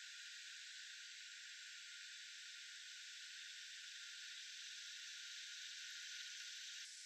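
Faint, steady high-pitched hiss of outdoor ambience with no bird calls or other distinct sounds. It shifts abruptly in tone near the end.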